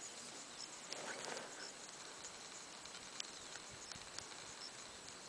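Faint open-air ambience: a low hiss with scattered soft ticks and a couple of brief, faint high chirps.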